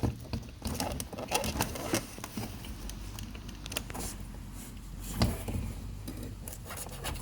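Plastic clicking and rattling as a stiff wiring-harness connector is worked loose from the power window switch on a removed car door panel, with one sharp click about five seconds in.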